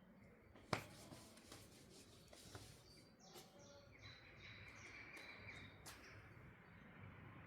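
Near silence: a single sharp click just under a second in and a few small ticks, then faint bird chirps from about three seconds on.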